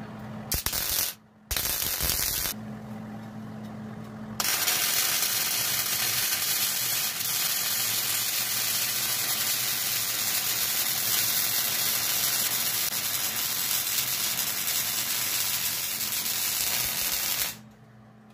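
Electric arc welding on steel plate. After a couple of brief bursts about a second in, the arc runs continuously with a steady crackling hiss for about thirteen seconds and cuts off near the end.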